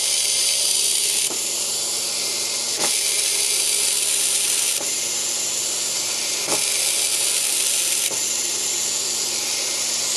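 Small electric gear motor of a servoless RC landing-gear retract running steadily, driving a pin along its threaded shaft with a high whirring sound and a few faint clicks and slight changes in level. It cuts off abruptly near the end, as the retract reaches its end stop and shuts off.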